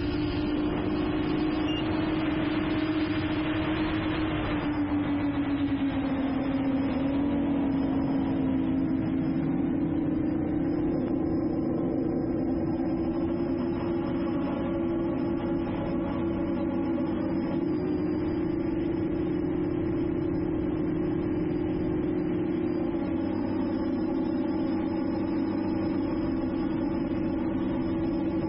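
Multirotor drone's motors and propellers humming steadily in flight. The pitch sags briefly about five seconds in as the motor speed drops, then rises back and holds.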